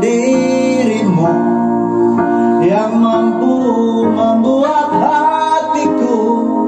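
A song playing: a singer's voice over instrumental accompaniment.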